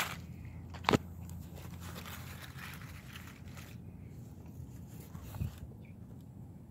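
Paper food wrapping crinkling as a hand handles it, with a single sharp knock about a second in.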